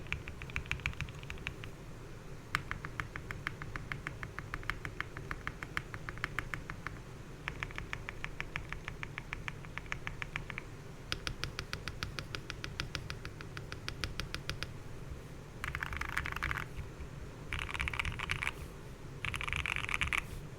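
Typing on an MW65 gasket-mounted 65% keyboard with lubed, filmed Gateron Milky Yellow linear switches, a polycarbonate plate and PBT cherry-profile keycaps: runs of rapid keystrokes in several bursts with short pauses. In the last few seconds the bursts turn denser and louder.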